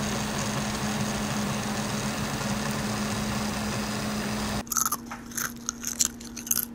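A 3D printer running with a steady mechanical whir and hum. Its sound cuts off abruptly about two-thirds of the way in, giving way to a quick, irregular run of sharp clicks.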